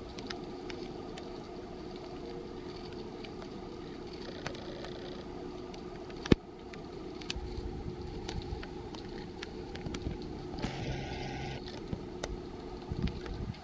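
Steady engine hum of heavy machinery running at a constant pitch, with scattered light clicks and one sharp knock about six seconds in.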